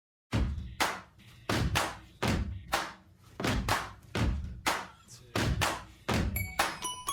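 A drum beat starts suddenly after a moment of silence: evenly paced thumping hits with a repeating pattern of about two to three strokes a second. Near the end, high bell-like chiming notes join in over the beat.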